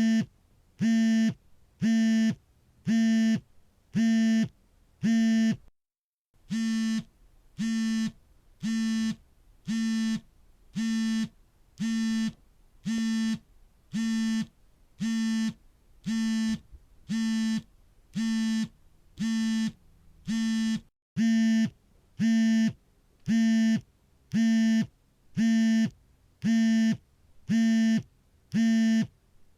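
A mobile phone's vibration motor buzzing for an incoming call in short, evenly spaced pulses, about one a second, each a steady low buzz with a rattly edge. The pattern breaks off briefly about 6 seconds in and again about 21 seconds in, and the buzzes are slightly louder after the second break.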